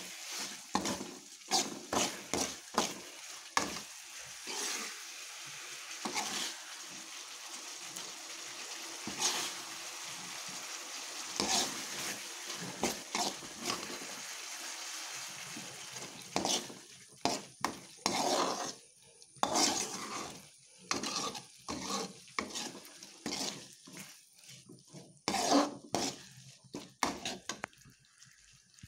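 A steel spoon stirring and scraping a thick tamarind masala that is frying and sizzling in oil in a pan, cooking down until the oil separates. The scraping strokes come one after another, with a steadier sizzle in the middle; after about 16 seconds the strokes are more spaced out, with quieter gaps between them.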